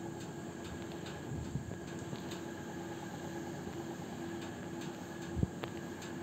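Steady background room noise with a faint, even hum, broken by a single soft thump about five seconds in.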